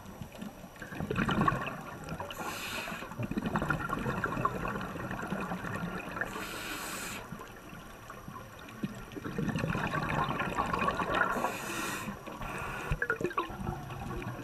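Scuba diver breathing through a regulator underwater, heard from close by: a short hiss with each inhale, three times, and between them longer surges of gurgling, bubbling exhaust bubbles.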